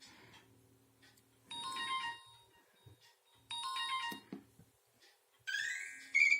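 Nokia mobile phone ringtones playing from the phone's speaker. The same short chiming phrase sounds twice, about two seconds apart, then a quick rising run of tones comes near the end, with a few soft clicks in between.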